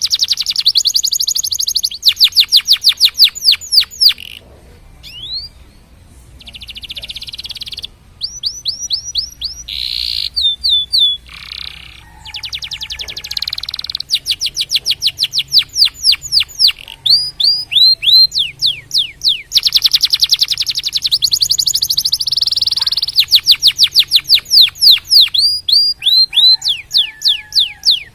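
Domestic canary singing a long song: fast strings of repeated sweeping notes alternating with dense rolling trills, broken by a few short pauses.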